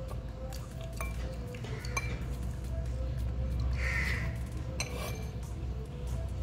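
Metal spoon clinking against a ceramic bowl a few times while eating, with background music underneath.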